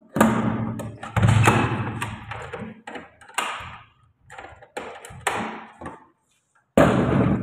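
A key rattling and turning in a metal door lock and the door being handled: a string of loud clattering knocks and clicks with short gaps between them.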